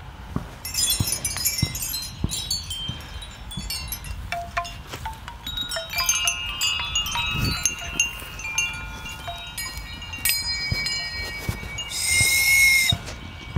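Hanging metal chimes struck one after another, clear ringing tones overlapping and dying away. A little before the end comes a short breathy blown note with a bleating quality.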